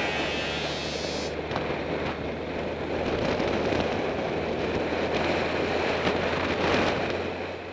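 Wind rushing over a helmet-mounted camera's microphone while riding a motorcycle, with the steady low hum of the motorcycle's engine beneath it. The sound fades down near the end.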